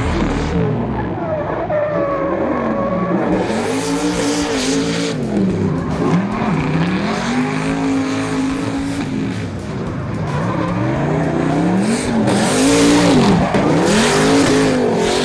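Turbocharged GM LS2 6.2-litre V8 in a Nissan S15 Silvia drift car, its pitch rising and falling over and over through a screamer pipe exiting the bonnet. Tyres squeal and skid in bursts, about four seconds in and again near the end.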